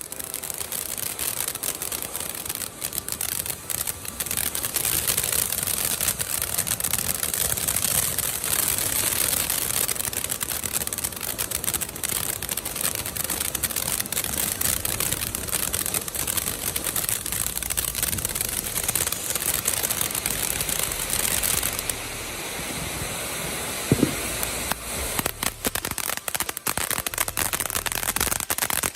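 Consumer ground fountain firework burning with a steady hissing spray and a continuous dense crackle. Near the end the spray eases, there is a single pop, and then a fierce run of sharp crackling.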